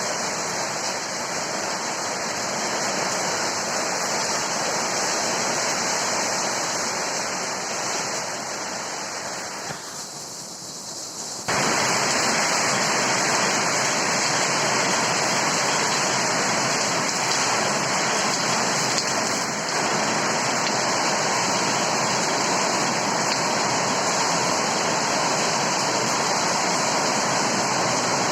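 Heavy rain with strong wind: a steady rushing noise. It sags for a couple of seconds, then comes back abruptly louder about eleven seconds in.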